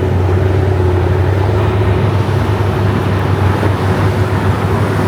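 Car driving at a steady speed: a steady low engine drone with road and tyre noise.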